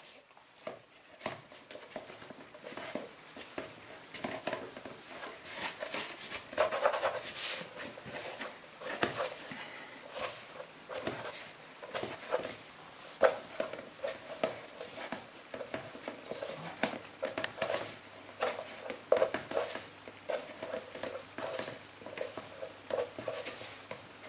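A hand kneading soft potato gnocchi dough in a plastic mixing bowl: a run of irregular soft squelches and knocks.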